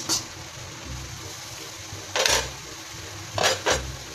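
A spatula scraping against a wok as it stirs vegetables: a short scrape at the start, another about two seconds in, and a double scrape about three and a half seconds in.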